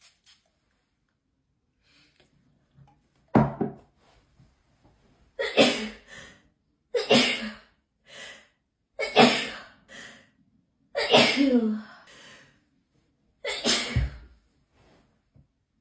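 A person sneezing six times in a row, a hay fever sneezing fit. The sneezes start about three seconds in and come about every two seconds, each a loud, sudden burst with a short after-sound.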